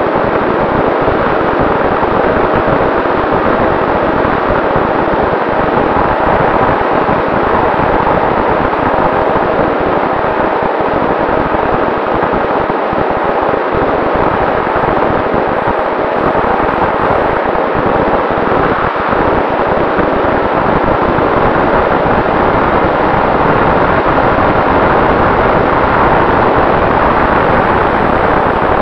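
Steady wind rush on an onboard action camera's microphone aboard a Volantex Ranger 757-3 RC plane in flight, with the constant hum of its electric motor and propeller underneath.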